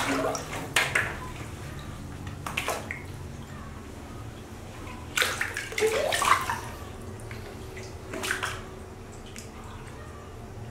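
Water splashing and sloshing in a plastic basin as a baby macaque moves about in it, in short bursts a few seconds apart, the loudest cluster about five to six and a half seconds in.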